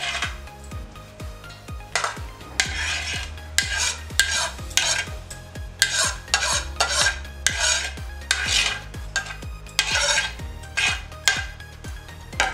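Metal spoon scraping sliced onions off a ceramic plate into a stainless steel mixing bowl: repeated short scraping strokes, with faint background music underneath.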